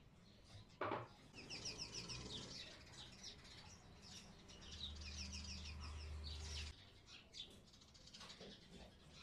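Faint chirping of a small bird in quick repeated trills, with a sharp knock about a second in and a low hum for about two seconds past the middle.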